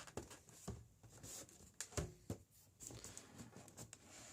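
Plastic cover and packaging in a sneaker box being handled: faint rustling with a few soft knocks, one under a second in and a couple about two seconds in.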